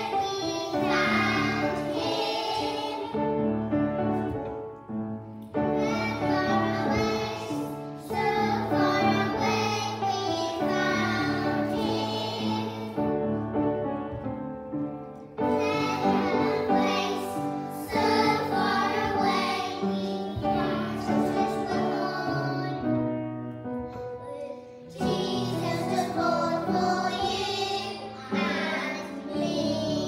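A group of young children singing a song together over an instrumental accompaniment, in phrases with short breaks between them.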